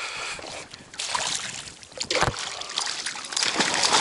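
Stream water splashing as a freshly hooked trout is fought in close, with a sharp thump a little past halfway.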